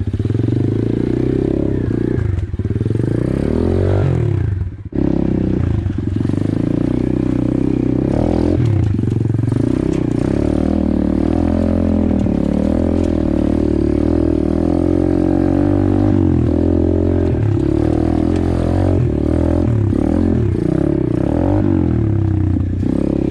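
Apollo RFZ 125cc pit bike's single-cylinder four-stroke engine running under load, revs rising and falling as the throttle is worked, with a brief drop in engine sound about five seconds in.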